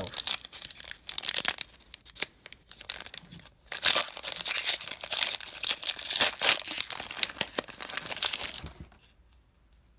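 Foil wrapper of a Pokémon trading card booster pack crinkling and being torn open by hand, crackling louder and denser from about four seconds in, then stopping about a second before the end.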